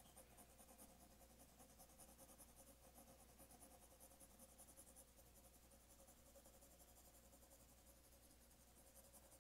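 Faint, rapid back-and-forth strokes of a 4B graphite pencil shading on drawing paper, laying an even coat of gray.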